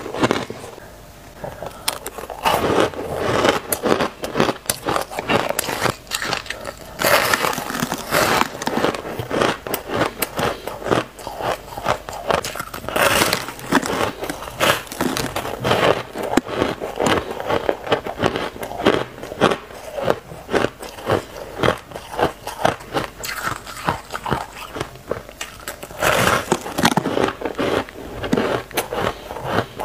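A person biting into and chewing blocks of frosty, powdery ice close to the microphone. It makes a dense, irregular run of crisp crunches that keeps going throughout.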